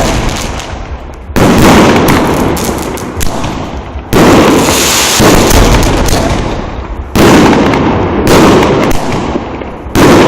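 Fireworks going off: five loud bangs a few seconds apart. Each bang is followed by a crackling rumble that dies away.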